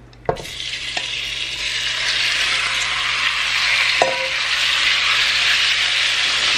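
Cubed raw chicken breast sizzling as it drops into hot avocado oil in a stock pot. The sizzle starts suddenly a moment in and grows louder, with a few knocks of the serving utensil against the bowl and pot.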